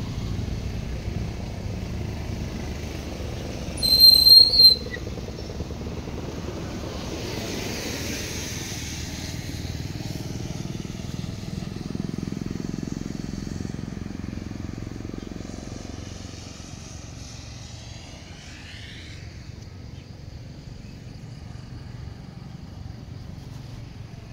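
Motorcycle riding along, with steady engine and wind noise and a short, loud, high-pitched horn beep about four seconds in.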